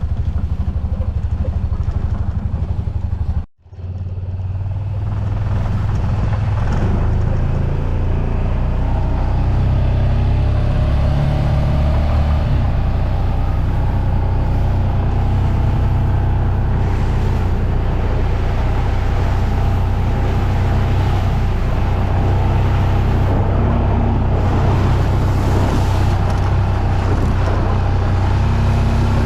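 Vehicle engine running steadily while driving, with a momentary drop-out about three and a half seconds in.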